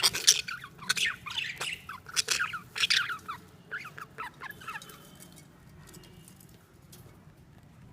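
Caged budgies chirping and squawking in a rapid jumble of short, sharp calls that die away about five seconds in, leaving only faint sound.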